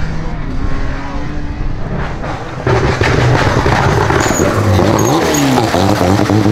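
Rally car engines at full throttle: first a BMW E36 3 Series rally car pulling away. Then, about two and a half seconds in, a louder Alpine A110 rally car accelerates hard, its revs rising, dipping briefly at a gear change and climbing again.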